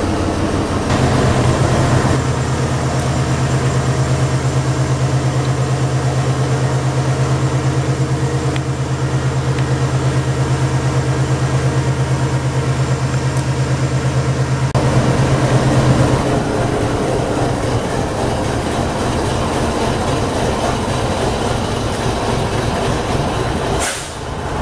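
Diesel-electric locomotives running close by, led by a GE ES43BBI, with a steady low engine hum. About fifteen seconds in the hum drops away and a rougher rumble carries on.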